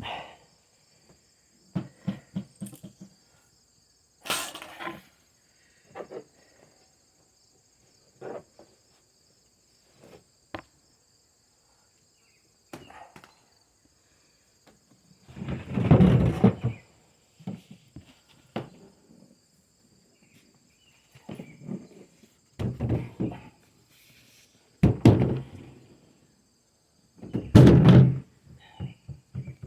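Scattered thumps, knocks and rustling bumps from a phone that has just been set down and is being moved or brushed, with several louder low rumbling bumps in the second half. A faint steady high-pitched tone sits underneath throughout.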